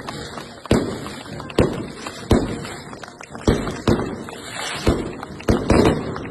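Fireworks going off: about eight sharp bangs at uneven intervals, some coming in quick pairs, each fading away quickly.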